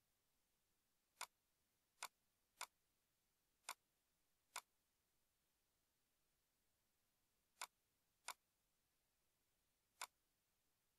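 Computer mouse button clicked eight times at uneven intervals, each a short, sharp click, faint against near silence.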